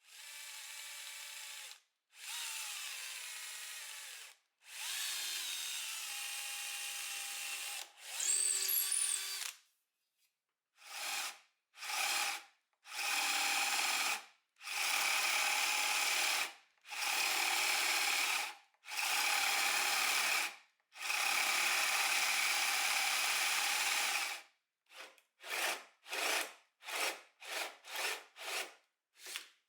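Electric hand drill running in repeated bursts of one to three seconds, its pitch shifting with speed in the first few, then a quick series of short pulses near the end.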